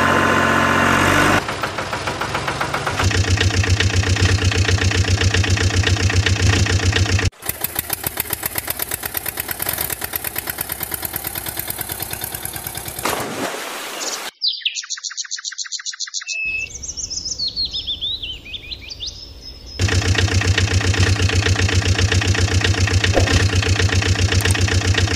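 An engine running with a regular rapid firing beat, cut into several segments. Between them, a few seconds of bird chirping with trills and gliding calls.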